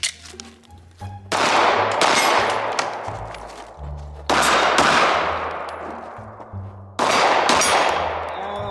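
Gunshots from a 9 mm Glock 19 pistol fired during a timed shooting drill, coming in three loud bursts, each trailing off over a couple of seconds, with background music under them.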